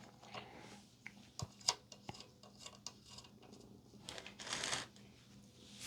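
Light clicks and taps of small hardware and circuit boards being handled and fitted together by hand, with a short rustle about four seconds in.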